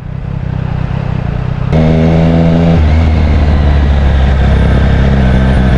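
Triumph Street Triple RS three-cylinder engine running through a Zard slip-on exhaust, quieter at first. Less than two seconds in, it jumps abruptly to a much louder, steady engine note.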